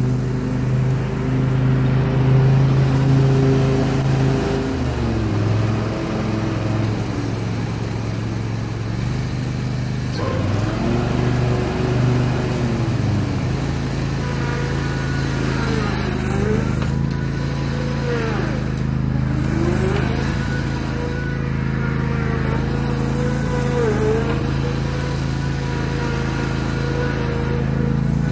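Grasshopper Model 612 zero-turn riding mower running steadily as it drives across the lawn, with a higher whine that dips and rises in pitch several times over the engine's steady note.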